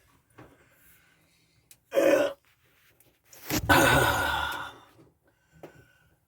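A man's breathing while he works: a short sharp intake of breath about two seconds in, then a long, loud, heavy sigh out about a second later.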